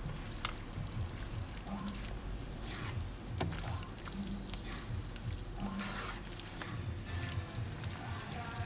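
A spatula stirring and tossing wet vegetables in a nonstick wok, with scattered clicks and scrapes against the pan, over quiet background music.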